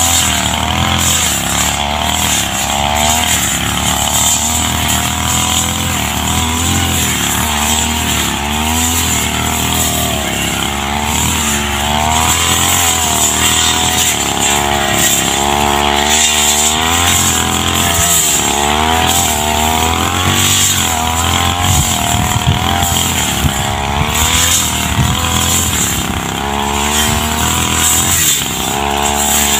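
Backpack brush cutter's engine running under load, its pitch rising and falling continually as the cutting head is swung through tall grass.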